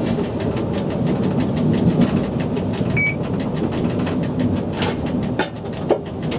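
Cab running noise of an SNCF Z 5300 electric multiple unit under way: a steady rumble of wheels on the rails and running gear. A short high beep sounds about three seconds in, and a few sharp clunks come near the end.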